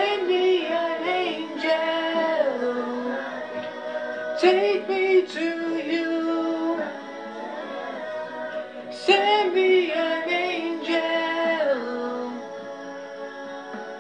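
Three long wordless sung runs: one at the start, one a little after four seconds in and one about nine seconds in. They sweep up and down in pitch over steady, sustained backing notes.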